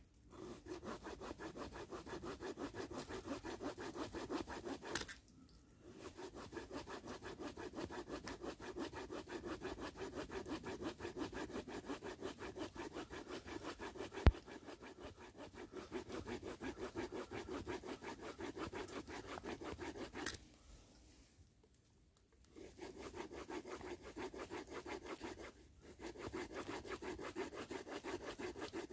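Small wood-saw blade of a Daicamping DL30 multitool cutting through a wooden stick in steady back-and-forth strokes, pausing briefly three times. The blade is a thick one that advances slowly in the wood. A single sharp click sounds about 14 seconds in.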